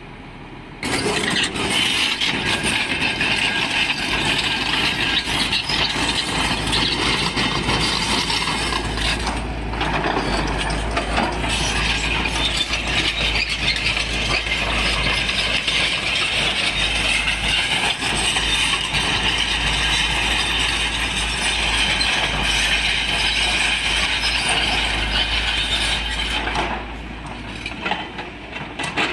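Epiroc (Atlas Copco) hydraulic rock breaker on a Volvo EC210D excavator hammering rock with rapid blows, over the excavator's diesel engine. The hammering starts about a second in and eases near the end.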